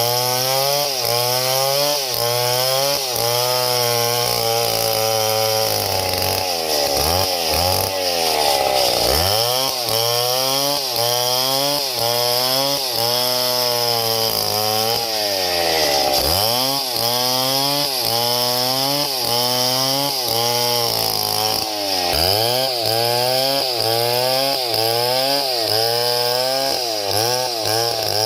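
Small chainsaw running, its engine pitch rising and falling over and over: quick rises and drops about twice a second at first, then slower, deeper dips every few seconds.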